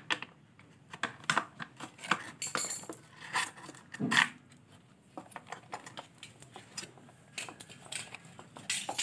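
Irregular clicks, taps and knocks of hands handling the parts and wiring inside a high-pressure washer's plastic housing, with a louder knock about four seconds in.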